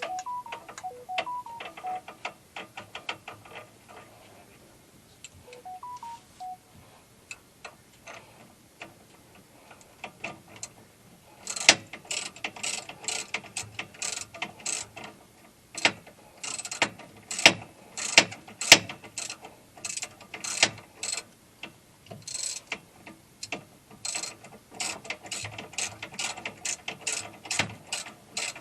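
Socket ratchet clicking in quick runs of strokes, faint at first and louder from about twelve seconds in: new spark plugs being run into the engine of a Honda Pioneer 700 side-by-side.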